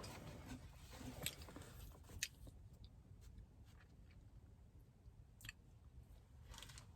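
Faint mouth sounds of someone biting into and chewing a soft mochi donut, with a few short clicks now and then.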